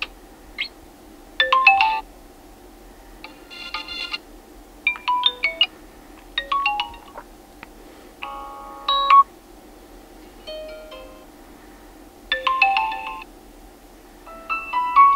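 Vivo V23 smartphone ringtones previewed one after another: about nine short snippets of electronic melody, each cut off after a second or less, with brief pauses between them.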